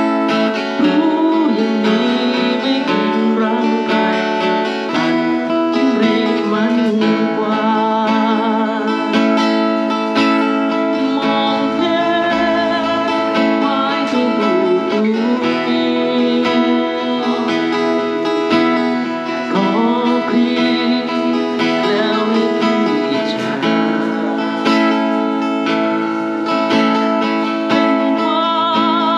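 Acoustic guitar played live, with a voice singing along.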